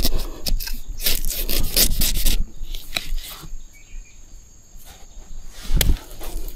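Dry bamboo leaves and stems rustling and crackling as a person works through a clump of ruak bamboo gathering young shoots. The crackling is busiest in the first couple of seconds, eases off, and a single sharp snap comes near the end.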